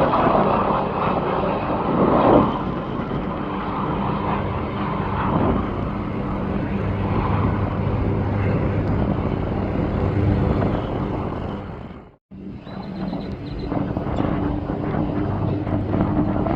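Jet airliner engine noise at an airport, a steady rush over a constant low hum. It breaks off for a moment about twelve seconds in at a cut, then carries on much the same.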